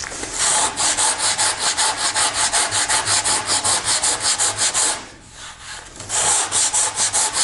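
Coarse 36-grit sandpaper on a hand sanding block rasping over a wood edge and cured Bondo body filler in quick back-and-forth strokes, about five a second. The strokes stop for about a second some five seconds in, then resume.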